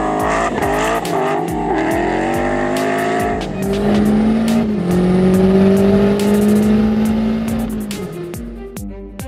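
Racing car engine accelerating hard, its pitch climbing, dropping about three and a half seconds in and then holding high and steady, mixed with a film music score.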